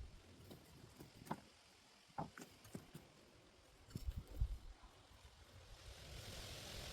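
Faint rustling and scattered soft knocks of digging soil and potatoes out of a weedy potato bed, with a short cluster of low thumps about four seconds in. A steady hiss builds near the end.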